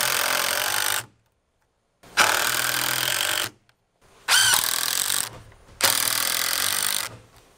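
Cordless impact driver driving screws into 2x4 framing lumber, four runs of about a second each with short pauses between.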